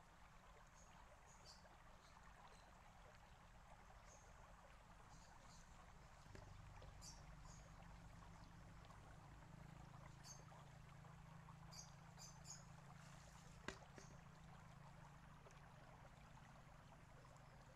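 Near silence: the faint trickle of water welling over the top of a small stone millstone bubbler fountain, with scattered brief high chirps. A single sharp click sounds once, a little past the middle.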